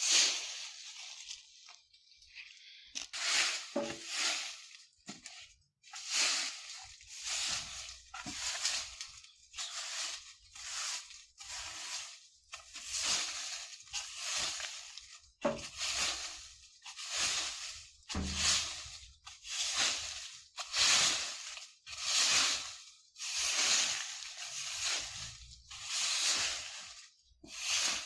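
A broom sweeping dry fallen leaves across the ground in steady, rhythmic strokes, each a crisp rustling swish, about one stroke a second after a short pause near the start.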